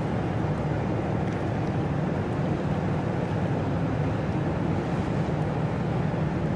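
Ship's engine running with a steady low rumble.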